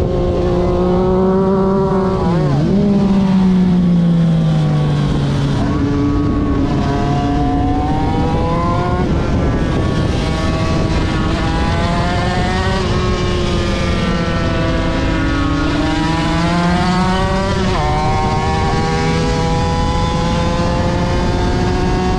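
Aprilia RS250 two-stroke V-twin race engine pulling hard under acceleration, its pitch climbing and then dropping at each gear change, again and again. There is a quick sharp dip and recovery about two and a half seconds in and again near the end.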